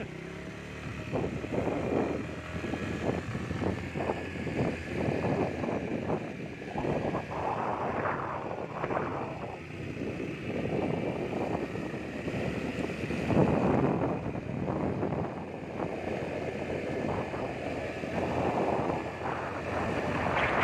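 Wind buffeting the microphone over the running noise of a moving vehicle, gusting up and down in strength.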